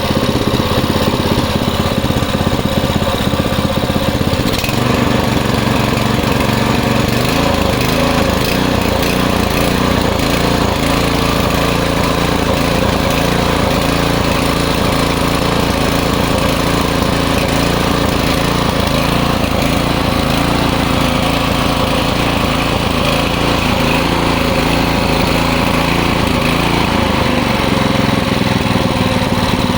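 Westinghouse WPX3200 pressure washer's small single-cylinder gas engine running. It idles at first, speeds up about four seconds in under the newly fitted manual throttle control, and drops back toward idle near the end.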